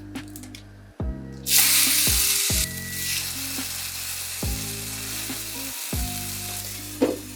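Pre-made chicken burger patties frying in hot oil: a loud sizzle breaks out about a second and a half in, then settles into steady frying. Background music with a regular beat runs underneath.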